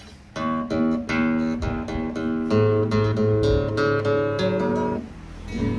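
Yamaha GC60 nylon-string classical guitar played: a short phrase of single plucked notes and chords that rings on a sustained chord and stops about five seconds in.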